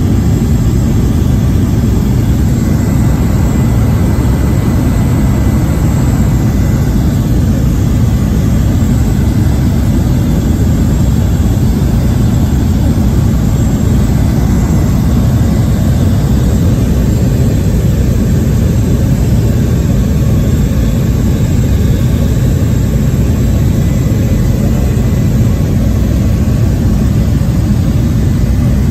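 Cabin noise inside a Cessna 208 Caravan in flight: its Pratt & Whitney Canada PT6A turboprop engine and propeller run steadily as a loud, low, even drone, with a thin steady whine above it.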